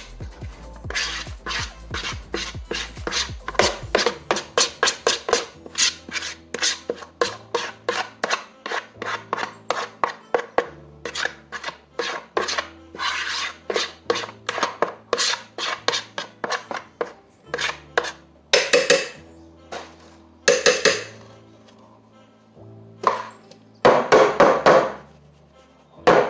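Batter being scraped out of a mixing bowl into a bundt pan: quick repeated scraping strokes, about two or three a second, with a few longer, louder scrapes near the end. Background music plays underneath.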